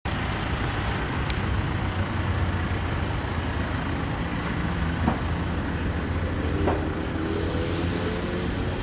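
Steady low rumble of road traffic, with a few faint clicks and knocks.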